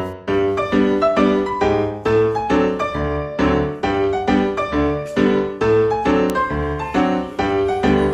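Background music: a piano piece with a steady rhythm of repeated chords and melody notes.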